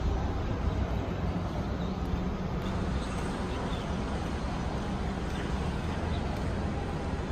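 Steady low rumble of outdoor city ambience, with distant traffic, heard across an open station forecourt.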